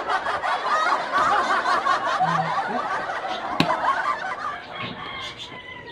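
Several people laughing and snickering together, slowly dying down toward the end; a single sharp click about three and a half seconds in.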